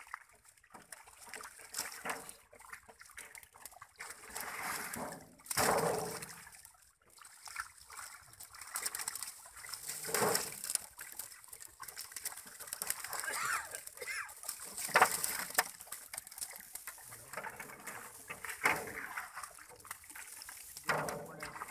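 Pond water splashing and sloshing in irregular bursts as a plastic basket scoops netted live fish, which thrash at the surface. Several louder splashes stand out.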